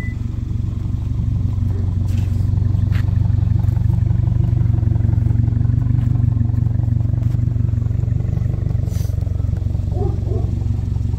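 2022 Subaru WRX's turbocharged 2.4-litre flat-four engine idling steadily through its exhaust, with no revving.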